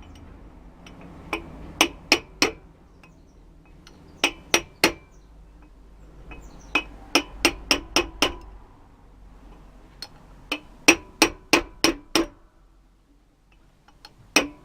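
Hammer tapping on metal, driving a Ford Escort rear wheel bearing into its seat. The taps are light and ringing, about three a second, in runs of three to eight with short pauses between.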